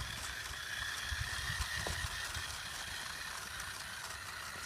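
Remote-control toy car's electric motor and gears whining steadily as the car drives up a slope under load.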